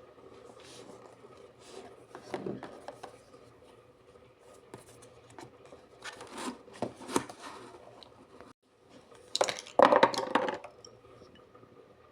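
Perfume packaging being handled during unboxing: scattered clicks and taps with short bursts of rustling, the loudest burst a little under ten seconds in.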